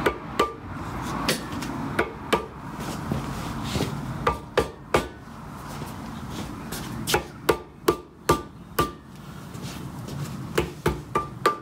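Hammer tapping a crankshaft bearing cap down onto its locating dowels on a Saab B207 engine block: sharp knocks in small clusters, many with a short metallic ring.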